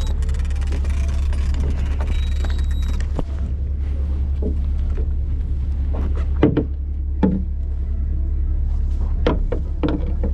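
Steady low drone of a party boat's engines, with scattered knocks and clatter on deck in the second half.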